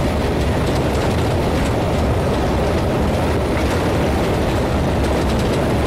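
Loud, steady rumble and rush of a vehicle in motion.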